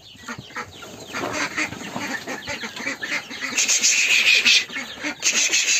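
A flock of ducks calling, many short overlapping quacks and peeps, growing louder in two bursts over the last two seconds as the birds are driven out of their coop.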